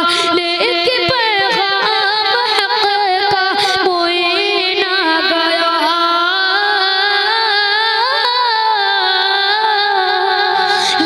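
A boy singing a naat (Urdu devotional hymn) solo into a microphone, holding long notes with wavering melismatic turns.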